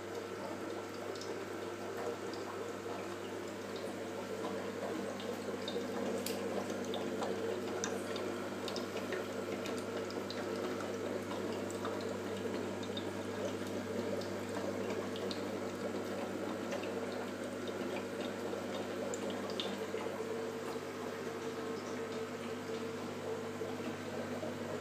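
Aquarium filtration running: a steady pump hum under trickling water, with scattered small drips.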